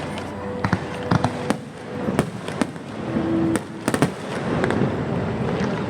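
Aerial fireworks display: sharp bangs of shells bursting at an irregular pace, with a quick cluster about four seconds in, over a continuous rumbling crackle.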